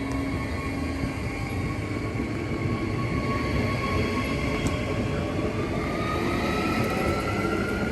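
Brisbane suburban electric train running, with a steady rumble and a thin motor whine that rises in pitch over the second half as the train speeds up.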